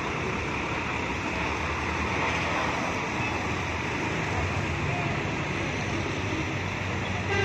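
Diesel engine of a Hino coach pulling away on a wet road, with the hiss of tyres on wet tarmac and street traffic. The low engine hum grows stronger about halfway through.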